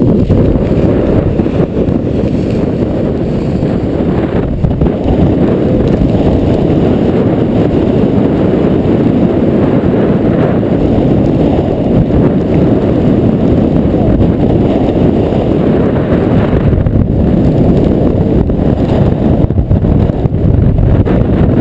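Hurricane wind buffeting the camera microphone: a loud, steady low roar.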